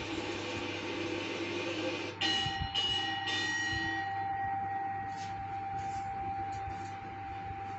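Temple bell rung during aarti: three ringing strikes about two seconds in, then fainter strokes, over a long steady tone that starts with the first strike and holds to the end. Heard from a television's speaker through a phone's microphone.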